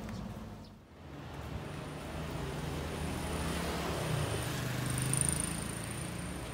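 Motor vehicle passing close by on a street, its engine hum growing louder to a peak about five seconds in, then easing off.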